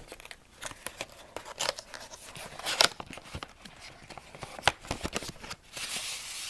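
Packaging of a replacement phone battery kit being handled: scattered clicks and taps with short rustles, and a longer rustle near the end.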